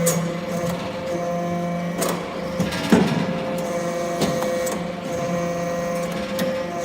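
Hydraulic copper briquetting press running: a steady machine hum, with a few sharp knocks and clanks through the middle.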